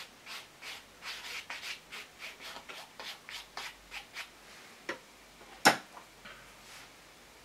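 Quick scratchy rubbing strokes on a painted canvas, about four a second, stopping about four seconds in. They are followed by a small click and then a sharp, louder click just before six seconds.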